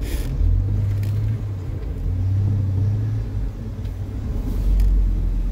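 Jeep Wrangler's engine running at low revs under a steady low rumble, heard from inside the cab; the throttle is eased on twice, each time for about a second.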